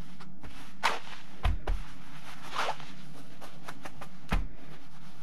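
A rice-filled fabric eye pillow being handled and pressed into its jersey cover: a few brief cloth rustles and two soft thuds as it is set down and patted on the table, over a steady low hum.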